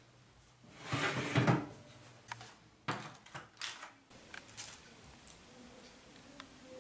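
Metal baking tray sliding out along an oven rack with a scraping rattle, followed by a few sharp clacks as the trays are handled.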